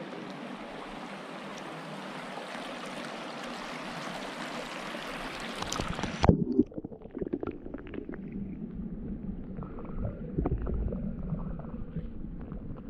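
Steady outdoor hiss, then about six seconds in a loud splash as the camera goes under water; from then on the sound is muffled, with dull low rumbling, bubbling and scattered knocks.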